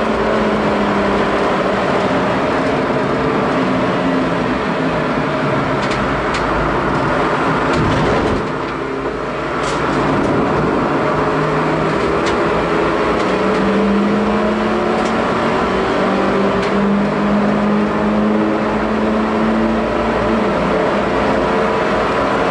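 Ford Ka race car's small, standard four-cylinder engine running hard on track, heard from inside the stripped cabin. The engine note drops briefly about eight seconds in, then pulls steadily again at high revs.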